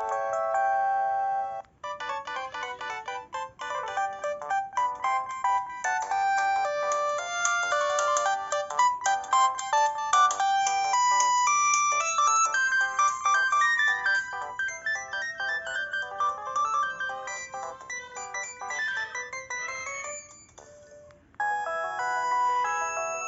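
Built-in ringtones of an LG GB115 mobile phone playing as electronic melodies. One tune ends about two seconds in. A second, busy tune of quick notes runs until a short break near the end, and then a third tune begins.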